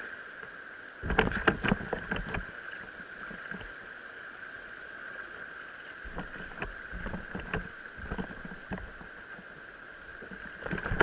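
A kayak running a small river rapid: water splashing and slapping against the hull and deck, with a cluster of loud splashes about a second in and scattered smaller ones later, over a steady rushing background.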